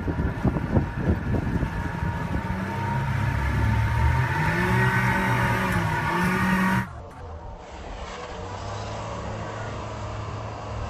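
Motorboat engine accelerating hard, its pitch rising and falling, with gusty wind buffeting the microphone in the first couple of seconds. About two-thirds of the way through the sound cuts abruptly to a quieter, steady engine hum.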